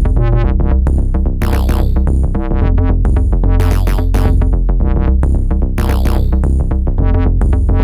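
Background electronic music: synthesizer over a steady drum-machine beat and bass.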